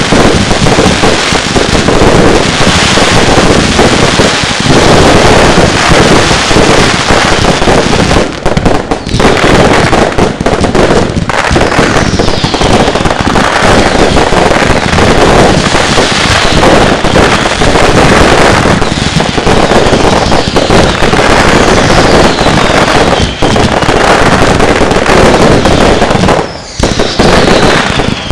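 Firework barrages firing in a dense, near-continuous run of loud bangs and crackle, with a few falling whistles now and then.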